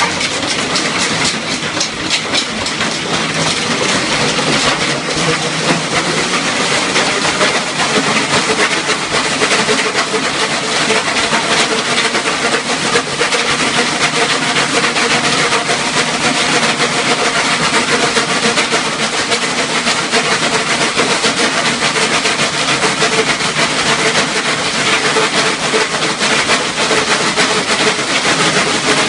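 Slat mill dog treadmill clattering steadily as a Staffordshire Bull Terrier runs on it: a fast, continuous rattle of the slats rolling over, with the dog's paws striking them.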